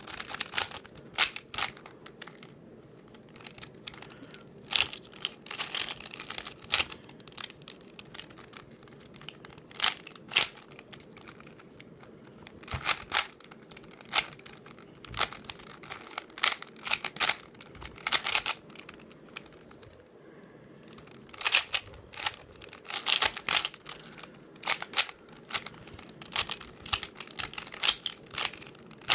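YJ Sulong 3x3 speedcube being turned fast by hand: bursts of rapid plastic clicking and clacking from its layers turning, broken by short pauses between sequences of moves.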